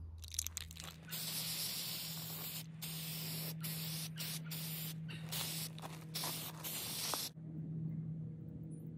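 Aerosol spray paint can (Rust-Oleum 2X) hissing in a run of spray strokes with short breaks between them as paint goes onto a steel frame. The spraying starts just after the beginning and stops about seven seconds in.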